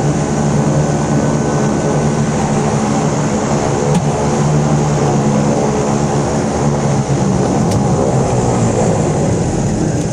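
De Havilland Canada DHC-6 Twin Otter's Pratt & Whitney PT6A turboprop engines and propellers droning steadily, heard from inside the cabin while the aircraft is on the ground after landing.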